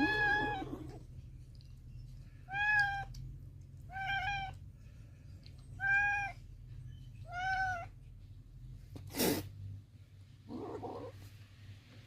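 Kitten meowing: five short, high-pitched meows spaced about a second and a half apart. A brief sharp burst of noise follows, then a short rough sound, over a steady low hum.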